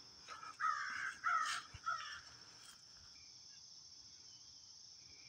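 A bird calling about four times in quick succession, over a steady high drone of insects.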